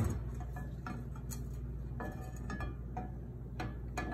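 Olive oil heating in a nonstick frying pan on a lit gas burner: scattered faint ticks and crackles over a steady low hum. One knock comes at the very start.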